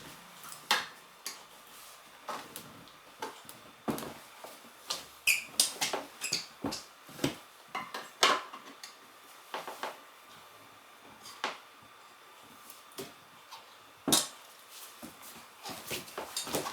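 Irregular metallic clinks, knocks and scrapes of hand tools working a motorcycle tyre and wheel during a manual tyre change, some strikes sharp and ringing briefly, with quiet gaps between them.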